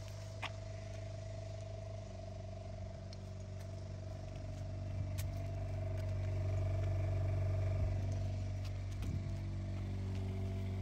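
Cummins turbo diesel engine of a motorhome idling steadily: a low, even hum with a faint thin whine above it. It grows somewhat louder a little past the middle, then eases back.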